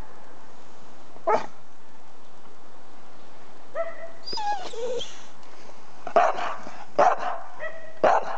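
A dog barks once, then gives a run of high, wavering whining calls, its noisy attempt at 'singing', and ends with three loud barks about a second apart.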